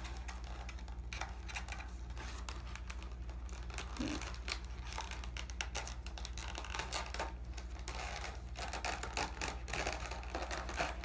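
Scattered light clicks, taps and crinkles of a diecast model airplane's cardboard box and plastic wrapping being handled and opened, over a steady low hum.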